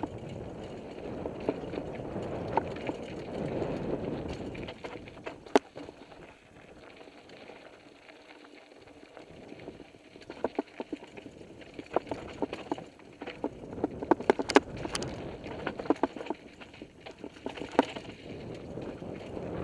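Mountain bike rolling down a rocky dirt trail: tyres crunching over gravel and stones, with a steady rush in the first few seconds. From about halfway on come many sharp rattles and knocks as the bike goes over rocks, thickest a little before the end.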